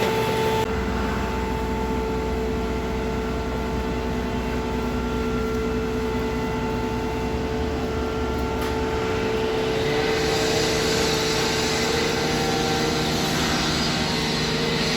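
Steady engine noise with a constant humming tone, growing brighter about ten seconds in.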